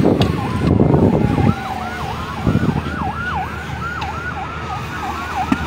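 Emergency vehicle siren: a slow falling wail for the first couple of seconds, then a fast yelp of about three rising-and-falling sweeps a second. A low rumble sits under it for the first second and a half.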